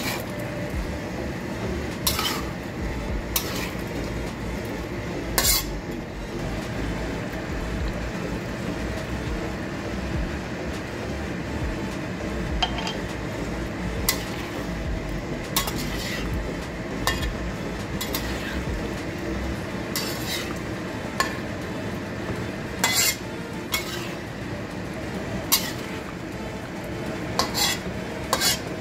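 A metal spoon stirring a simmering chicken curry in a wok, clinking and scraping against the pan in sharp, irregular knocks every second or two, over the steady sizzle of the bubbling curry.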